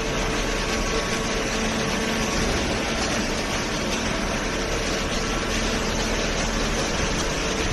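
Horizontal cardboard baler's hydraulic power unit running: a steady mechanical hum of motor and pump with a faint constant tone over it.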